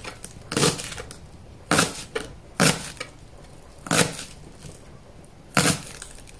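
Kitchen knife slicing through a bunch of spring onions on a cutting board: five cuts, unevenly spaced, roughly one a second.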